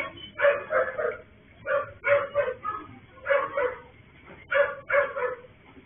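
A dog barking repeatedly, about nine barks, many of them in quick pairs, heard through a security camera's microphone.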